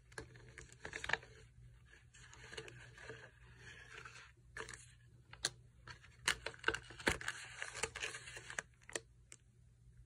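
Kraft-paper package and glassine sleeve rustling and crinkling as baker's twine is untied and pulled off. Sharp taps and clicks of handling cluster between about five and nine seconds in.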